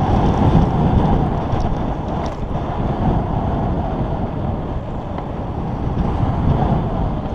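Wind buffeting the microphone over the rumble of mountain bike tyres rolling fast on a dirt and gravel trail, with a few faint clicks and rattles.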